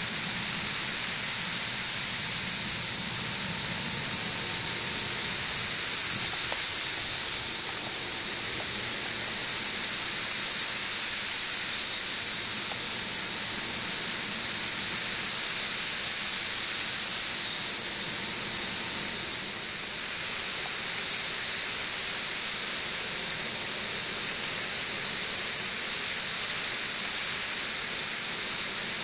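Massed chorus of 17-year periodical cicadas (Brood XIV), a steady, high-pitched, unbroken drone that sounds like static.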